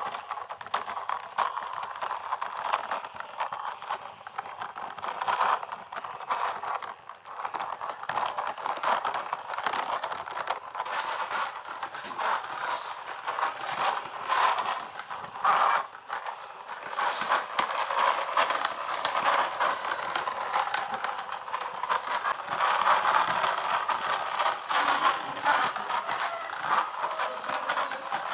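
Plastic toy trucks and a toy excavator being played with by hand, giving a continuous run of scraping, crackling and rattling with many small clicks and knocks.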